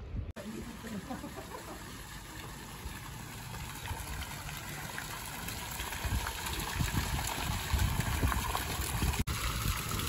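Water from a stone turtle fountain's spouts splashing steadily into its pool, over an uneven low rumble.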